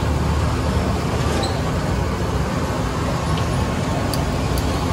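Steady roadside din: a low rumble of street traffic mixed with the hiss and crackle of bonda balls frying in a large kadai of hot oil. A few light clicks near the end.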